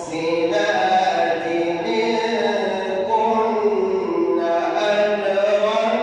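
A man reciting the Quran in melodic tajweed style, with an echo effect on his voice. After a short breath at the start he sings long, held notes that rise and fall.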